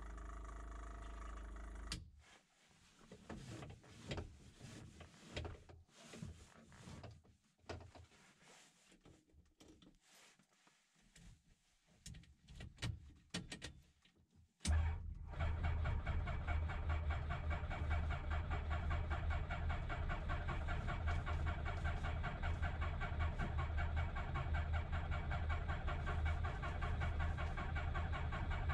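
Scattered clicks and knocks in the cockpit, then about halfway through the MCR01's Rotax 912 flat-four engine starts abruptly and settles into a steady idle, with the propeller turning.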